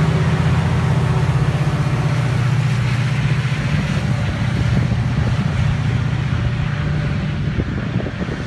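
MARC MP36PH-3C diesel locomotive's EMD 16-cylinder two-stroke engine under load as it shoves the departing commuter train away: a steady low drone over a hiss, slowly fading as it recedes.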